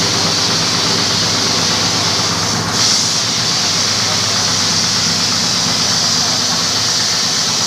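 Carpet-washing machine running: a steady motor hum under a loud, even hiss, with a brief surge about three seconds in.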